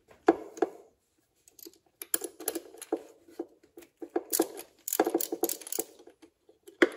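Ratchet wrench clicking in quick, irregular runs as it is worked back and forth, breaking loose a spark plug on a 1989 Mercury Black Max 150 V6 two-stroke outboard.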